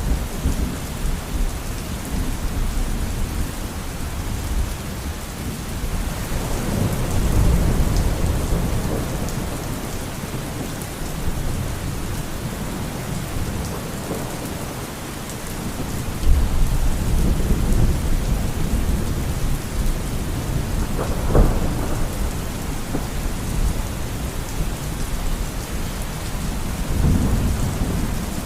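Steady heavy rain with thunder rumbling low several times, and a sharper thunderclap about three quarters of the way through.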